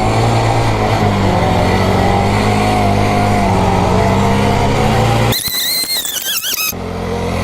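Small 40cc four-stroke mini quad engine running steadily at speed, its pitch wavering slightly. About five seconds in, the engine note gives way for just over a second to a higher, wavering sound, then comes back.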